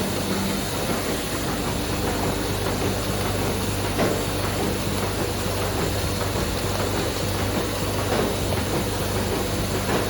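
Offset printing press running: a steady machine hum under continuous mechanical noise, with a light knock about four seconds in.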